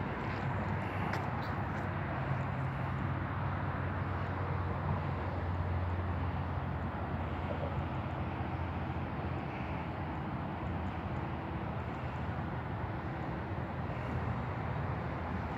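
Steady rumble of road traffic on a highway bridge over the river, with a low hum that is strongest in the first half and eases off about halfway through.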